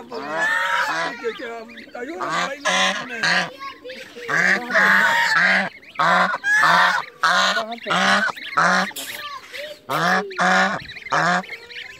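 White domestic geese honking over and over in short runs of loud, nasal calls, with goslings peeping among them.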